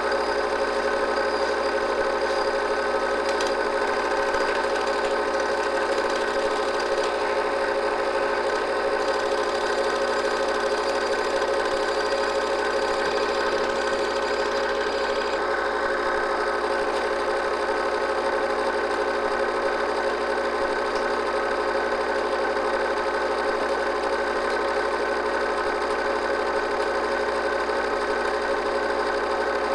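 Steady whir of a home-movie film projector running, an even mechanical drone with a few fixed tones and no change.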